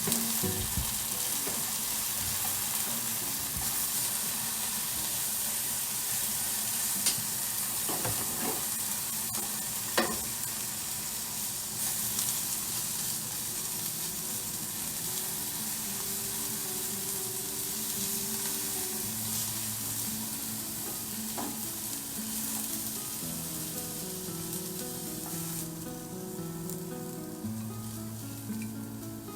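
Aburaage pouches stuffed with gyoza filling sizzling as they fry in a pan, with a few sharp utensil taps about a third of the way in. The sizzling eases off near the end.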